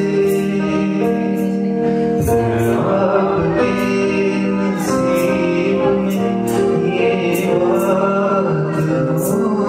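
Live acoustic band music with singing: held vocal notes over the accompaniment, with a light high-pitched percussion tick recurring through it.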